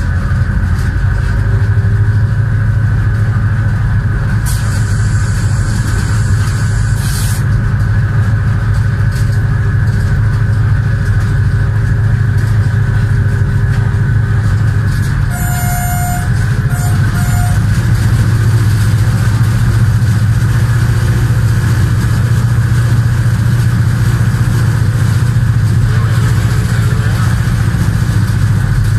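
Locomotive running at speed, heard from the cab: a steady low engine drone with wind and track noise. About halfway there are three short, high beeps.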